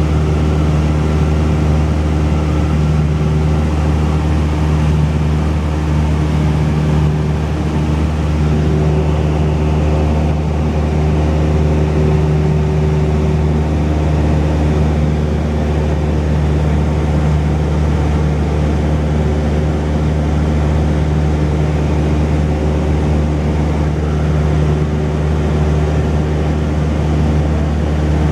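Cessna 172's single piston engine and propeller running steadily in flight, a constant low drone with no change in pitch or level.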